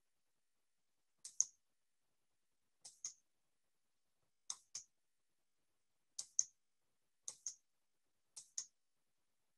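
Faint pairs of sharp clicks from a computer input device being operated, six pairs about a second to a second and a half apart.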